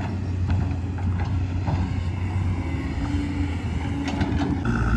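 Diesel dump truck engine running with a steady low drone. A steady high tone joins in near the end.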